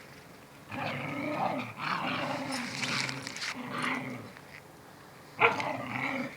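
A mother dog and her puppy growling at each other in a play-fight, with one short, louder bark or yap about five seconds in.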